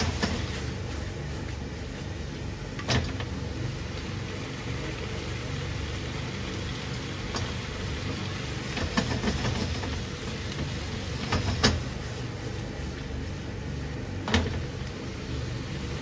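Udon noodles, sausage and cabbage sizzling in sauce in a frying pan, with a sharp click every few seconds as wooden chopsticks stir and knock against the pan.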